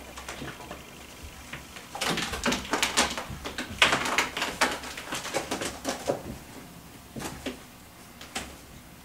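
Ragdoll kittens scrambling over a carpeted cat tree. A dense flurry of scratching claws and clicks starts about two seconds in and lasts several seconds, then thins to a few scattered taps.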